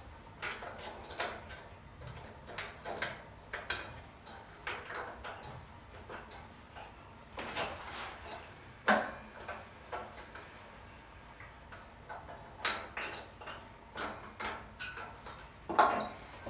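Irregular small metallic clicks, taps and light scrapes of brass clock parts being handled and worked loose during disassembly of a skeleton clock's movement, with two sharper knocks, one about nine seconds in and one near the end.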